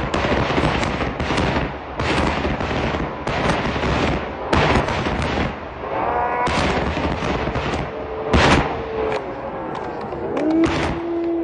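Aerial fireworks bursting in rapid succession, a dense run of booms and crackles, the loudest bang about eight and a half seconds in, with gliding whistles among them near the end.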